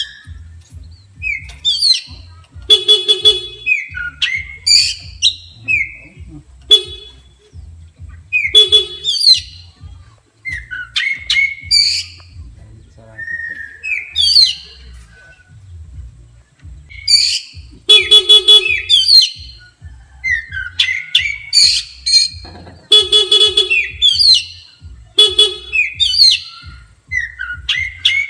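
Oriental magpie-robin singing hard in bursts: rapid sweeping whistles mixed with harsh buzzy notes, the agitated song it gives when provoked by a horn.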